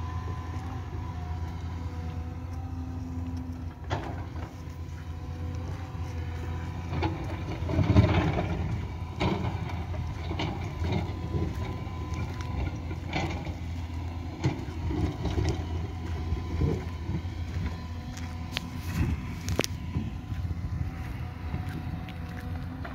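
Crawler excavator's diesel engine running steadily as a low drone, with scattered knocks and clanks; the loudest knock comes about eight seconds in.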